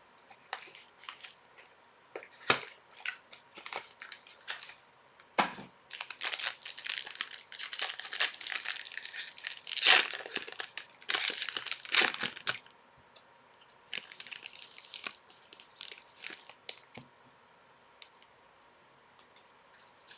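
Plastic wrapping on a sealed box of hockey cards being torn open and crumpled. Scattered crackles at first, then a dense stretch of tearing and crinkling in the middle, tapering off to a few crackles near the end.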